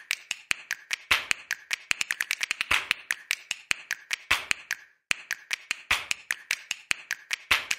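Percussive background music of crisp clicks and taps like finger snaps, several a second in a quick uneven rhythm over a faint hiss. It drops out for an instant about five seconds in.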